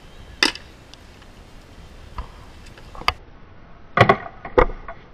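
Practice swords striking round painted Viking-style shields in a mock fight, each hit a sharp knock. There is one hit about half a second in, another near three seconds, then a quick flurry of three or four hits around four seconds.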